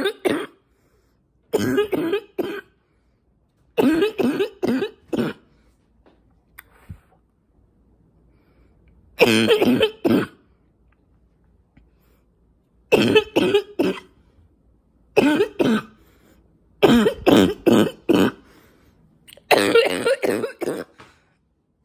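A woman's congested, barking cough, which she puts down to allergies. It comes in about seven fits of several quick coughs each, a few seconds apart.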